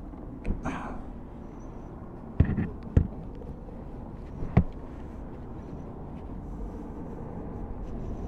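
A windscreen squeegee and plastic bucket being handled: a few sharp knocks and clacks over a steady background hiss.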